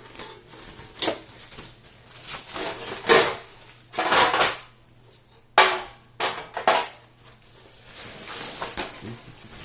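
Kit parts and packaging being handled and set down on a table: a string of separate knocks and clatters with rustling between, the sharpest about five and a half seconds in.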